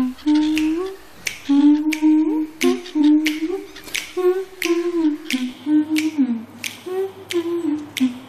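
A person humming a stepwise tune while snapping their fingers in a steady beat, about two snaps a second.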